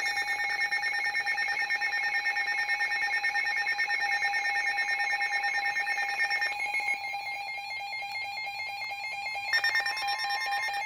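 Weather radio alert alarm: a steady electronic tone with rapidly pulsing higher tones. The pattern changes about two-thirds of the way through and cuts off near the end. It signals an incoming new warning broadcast.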